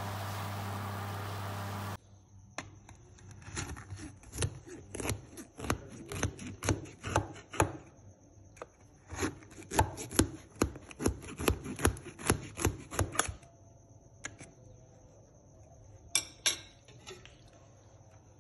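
A knife scoring a baked semolina cake in a metal loaf tin, its blade tapping the tin in a run of sharp clicks about two a second that dies away about three quarters of the way through, with two more taps near the end. Before the taps, a steady hum cuts off suddenly.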